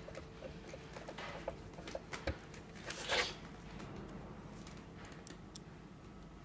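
Handling a black plastic housing on a plastic-sheeted workbench: small clicks from screwdriver work during the first two seconds, then a brushing swish of plastic sliding about three seconds in as the part is set down. A faint steady hum runs under it until about five seconds in.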